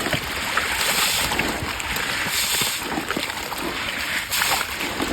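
Water splashing and sloshing in a fish pond, in irregular surges of hiss every second or so, with small knocks between them.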